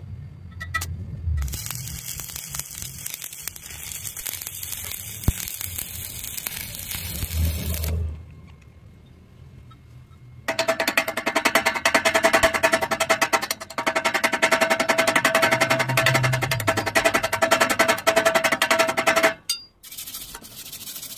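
Stick-welding arc crackling and hissing for about six seconds, then stopping. After a short pause, a louder steady sound with a rapid even rhythm and a held tone runs for about nine seconds and cuts off suddenly.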